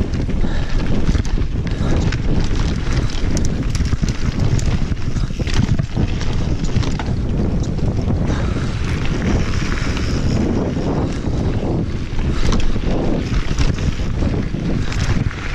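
Wind rushing over an action camera's microphone as a mountain bike rolls fast down a dirt trail, with a steady low rumble of tyres on the ground and frequent small knocks and rattles from the bike over bumps.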